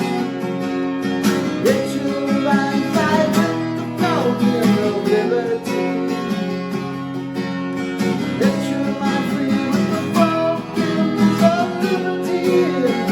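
Acoustic guitar strumming chords in a steady rhythm as a song accompaniment, with a few notes sliding in pitch.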